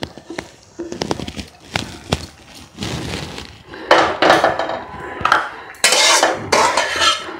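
Metal spatula scraping and knocking against a metal wok as the last of a cooked Malabar spinach and potato curry is scraped out into a steel bowl. A few light clinks first, then louder scraping strokes about four and six seconds in.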